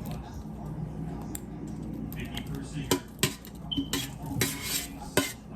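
Cooking utensil clinking and scraping against a pan while food is being spooned into a dish, with a few sharp knocks in the second half.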